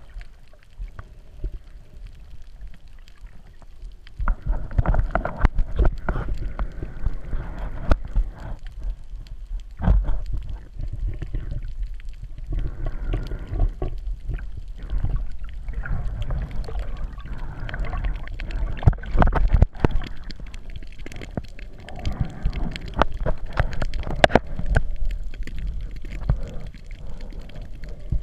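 Muffled underwater sound picked up by a submerged camera: water sloshing and gurgling with a low rumble and many irregular clicks and knocks, quieter for the first four seconds and busier after.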